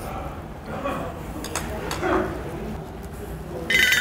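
Scattered light clinks of chopsticks and dishes at a table, with a faint mumble. Near the end a louder, high-pitched edited sound effect comes in.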